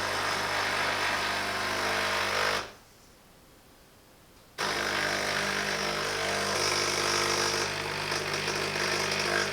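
Silvercrest SEM 1100 E1 espresso machine's 15-bar vibratory pump running steadily as it pushes water through a single shot, with a steady buzzing hum. It stops about two and a half seconds in, stays silent for about two seconds, then starts again and runs on.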